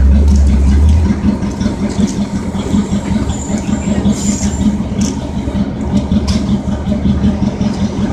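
Fire truck engine running steadily at the fire scene, with a strong deep rumble during the first second.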